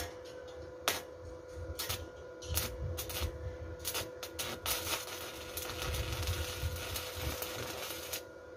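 Electric arc welding of steel rebar onto a steel pipe: the arc crackling and sizzling in short spurts during the first half, then running steadily from about halfway and stopping shortly before the end.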